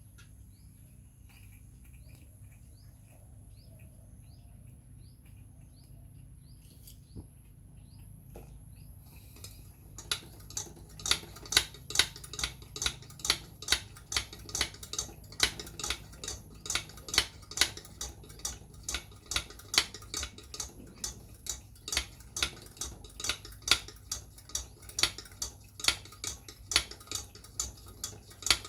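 Hand air pump of a kerosene pressure lantern being worked, a sharp click with each stroke about twice a second, starting about ten seconds in.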